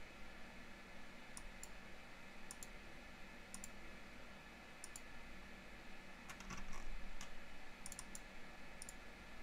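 Computer mouse clicking: about a dozen sharp, separate clicks, some in quick pairs, over a faint steady hum.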